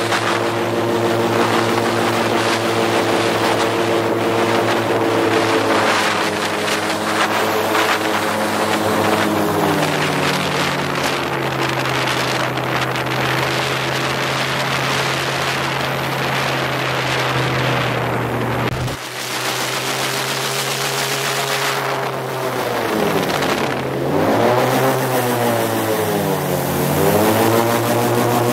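Airboat's engine and propeller running loud at speed. The pitch holds steady at first, eases lower about ten seconds in, then dips and climbs again twice near the end as the throttle is backed off and opened up.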